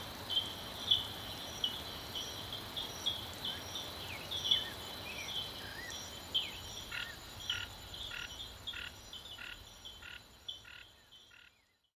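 Frogs calling in a steady run of short repeated calls. From about halfway through, a second caller joins with evenly spaced calls about twice a second. The chorus fades out near the end.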